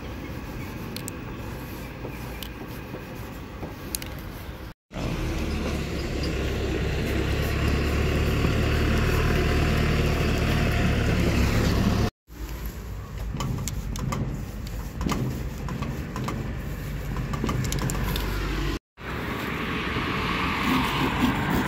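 Outdoor ambience with road traffic running as a steady low rumble, cut off abruptly three times by edits. Faint short scratches of a paint marker's nib on a wall come through it.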